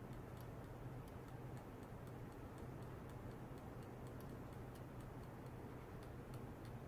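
Faint, irregular high ticks, several a second, over a steady low electrical hum.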